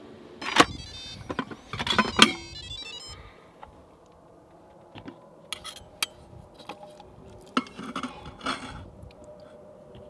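Utensils clattering and scraping against a stainless steel Instant Pot inner pot as a pressure-cooked roast is pulled apart: a loud burst of ringing metallic clinks in the first few seconds, then scattered lighter clinks and scrapes.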